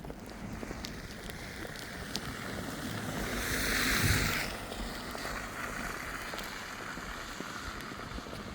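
Outdoor snowstorm ambience: a steady rush of wind with faint scattered crunches of footsteps in snow. About three seconds in, a hissing rush swells, peaks near four seconds and then drops away quickly.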